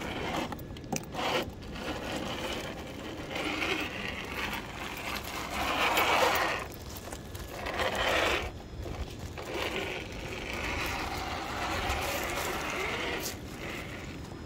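A Traxxas TRX-4 RC crawler's brushed 550 motor and geared drivetrain whirring in bursts of a second or two as it is driven, loudest about six seconds in.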